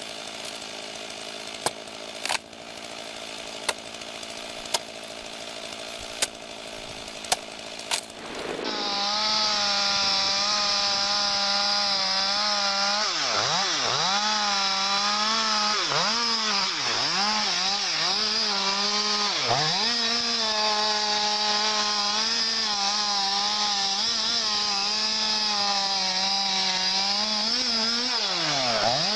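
A few sharp knocks of an axe striking wood, roughly one a second, over a faint engine hum. After about eight and a half seconds this gives way to a chainsaw at full throttle cutting into the base of a large tree trunk. Its pitch dips sharply and recovers several times as the chain loads up in the cut.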